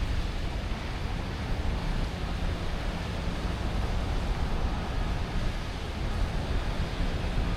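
Steady night-time city ambience in a Manhattan park: a constant wash of distant traffic noise with a low, fluttering rumble underneath.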